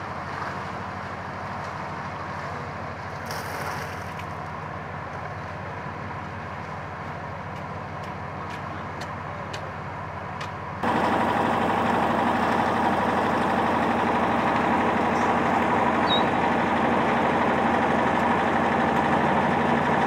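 Concrete mixer's engine running steadily, distant at first, then close and much louder from about halfway through.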